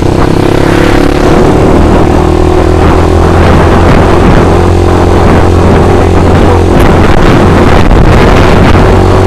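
Motorcycle engine running loud and close at a steady pitch, with a haze of rushing noise over it.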